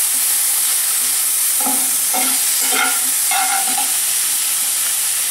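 Sliced onions, garlic and carrots sizzling in oil in a cast-iron skillet on high heat, stirred with a flat spatula. A steady hiss runs throughout.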